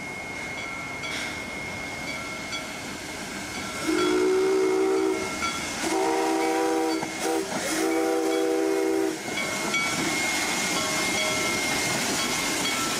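Small steam locomotive blowing its whistle three times, each blast a little over a second long, with several notes sounding together. A steady hiss of steam and train running noise goes on around the blasts.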